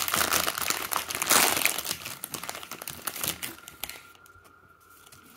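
Plastic wrapper of a Hot Wheels Mystery Models blind pack being torn open and crinkled by hand. The crinkling is dense and loud for the first two seconds, then thins to a few light crackles and dies away after about three and a half seconds.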